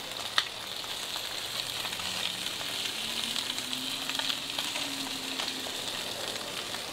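Sliced smoked beef chuck sizzling steadily on a hot Blackstone 36-inch flat-top griddle, with a single sharp click about half a second in.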